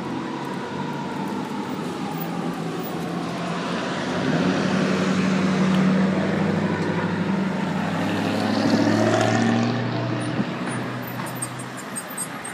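A heavy vehicle's engine running on a city street and revving up, rising in pitch and getting louder in the middle before fading away, over traffic noise.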